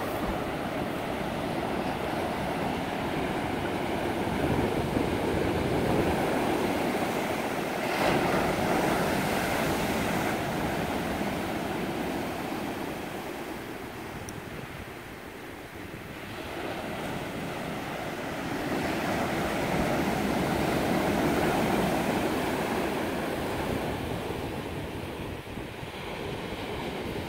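Ocean surf breaking on a sandy beach: a continuous wash of foaming waves that swells twice and eases off in between.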